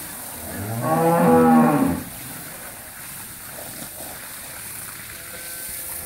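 A dairy cow mooing once: a single long, low moo of about a second and a half that rises slightly in pitch, then falls away.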